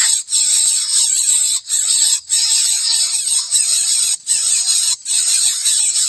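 Dense insect chorus: a steady, high-pitched buzzing hiss that drops out briefly a few times.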